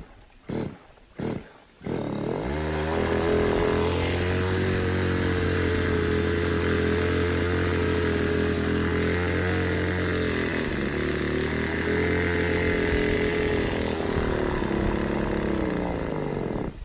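Poulan Pro two-stroke chainsaw pull-started with three quick tugs on the starter cord. It catches and runs at a steady, fairly high speed for about fourteen seconds, with a brief dip in speed midway. Near the end the speed sags and the engine cuts out suddenly, typical of this saw's fault of not staying running once warm.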